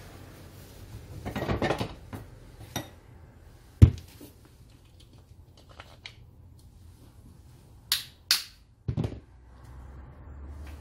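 Gloved hands handling metal disc-grinder parts on a workbench: a scuffle, then a sharp knock about four seconds in, a few light clicks, two sharp clinks about eight seconds in and a duller thud just after.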